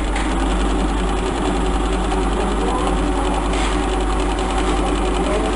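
Typical TW3-P335 cylinder-bed compound-feed lockstitch sewing machine running steadily, stitching at an even rapid rhythm over its motor's low hum.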